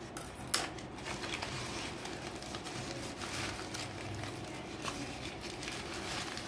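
Newspaper wrapping rustling and crinkling as it is pulled off a potted plant, with a sharp click about half a second in.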